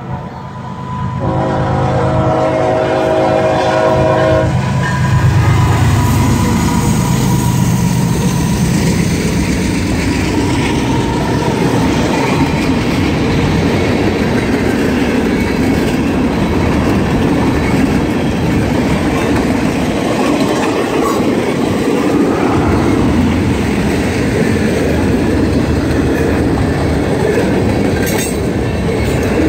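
A locomotive's multi-tone air horn sounds over a diesel engine's low rumble, breaking briefly about a second in and stopping about four seconds in. Then the train runs past, a dense, steady noise of wheels on the rails.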